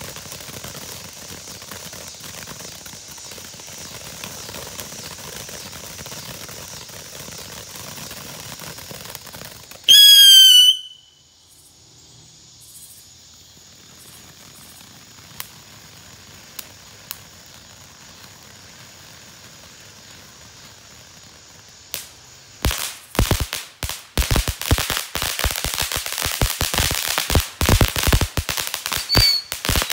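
Keystone Road Rage fountain firework spraying sparks with a steady hiss. About ten seconds in, a loud whistle sounds for under a second, then a quieter hiss with a few scattered pops. From about 22 seconds in, dense crackling builds and grows louder to the end.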